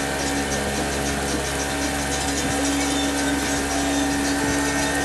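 Boat motor running at a steady speed, an even drone over a constant rushing hiss.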